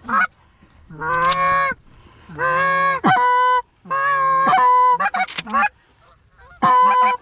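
Geese honking: a series of long calls, each holding a low note and then breaking up to a higher one, with a few short honks between.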